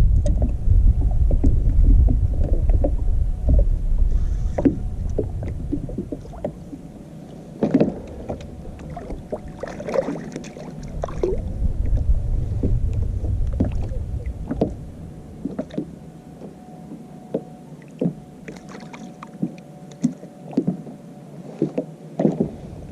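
Fishing kayak out on open water: wind rumbling on the microphone, heavy for the first few seconds and again midway, with scattered knocks and clicks of gear on the boat.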